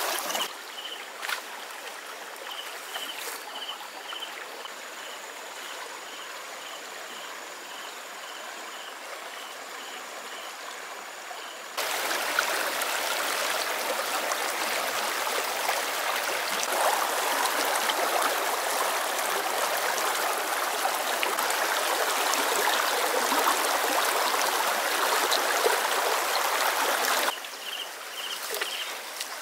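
Shallow stream trickling over stones, with a high chirp repeating about three times a second. About twelve seconds in it cuts to a much louder rush of river water flowing hard around a fishing net in the current, which runs for about fifteen seconds before cutting back to the quiet trickle and chirping.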